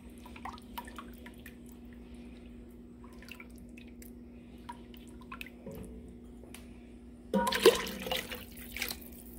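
Faint scattered ticks and small liquid sounds as a milk-and-roux cheese sauce is stirred in a saucepan, then about seven seconds in a louder splash of about a second as more milk is poured into the thickening sauce.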